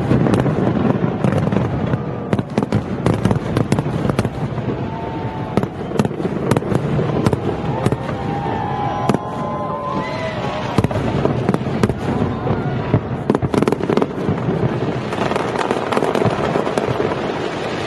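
Fireworks display: a dense, continuous run of bangs and crackling bursts, with a few short gliding tones about halfway through.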